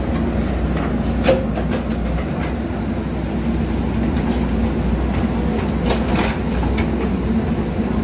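JCB 3DX backhoe loader's diesel engine running steadily under load while the backhoe bucket digs, with a few sharp knocks and clanks of the bucket and arm, the loudest about a second in and a couple more near six seconds.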